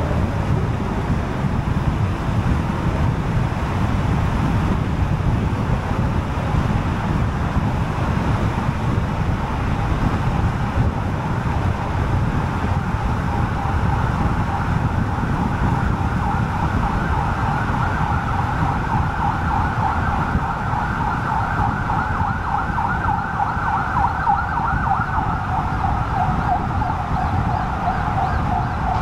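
Steady road and tyre rumble of a car driving on an expressway. From about twelve seconds in, a rapidly warbling emergency-vehicle siren grows louder and keeps sounding.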